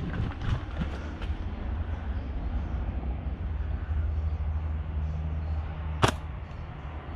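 A single sharp airsoft gun shot about six seconds in, over a steady low rumble, with a few faint ticks near the start.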